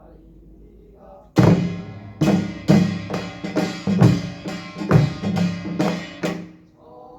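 Korean pungmul percussion ensemble playing a short loud passage: drums and ringing metal gongs struck together at about two beats a second, starting suddenly about a second and a half in and stopping shortly before the end.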